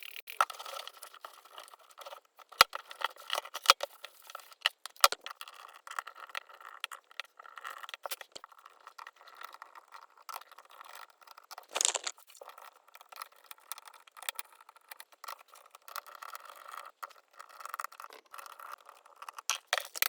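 Hands handling an old laptop: many small, irregular clicks, taps and rattles of plastic casing and small parts, with a louder scrape about twelve seconds in.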